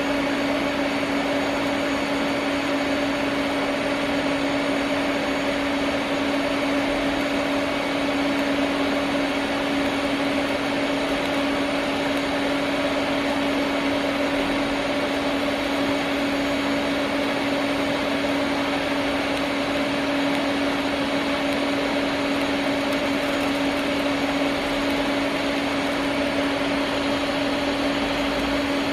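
TIG welding a steel control arm: the arc and welder give a steady buzz over a hiss, without a break.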